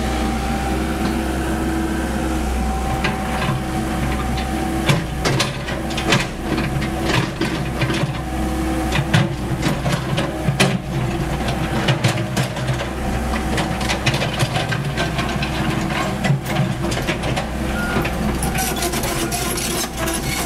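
Komatsu PC78US mini excavator's diesel engine running steadily under working load, with frequent sharp knocks and clatter of broken brick and concrete under the bucket from a few seconds in.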